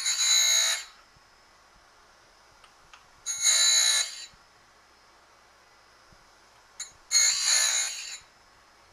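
Harig surface grinder's abrasive wheel grinding a chamfer on the edge of a thin metal piece pushed through a chamfering block: three passes, each about a second of high-pitched grinding, at the start, about three seconds in and about seven seconds in.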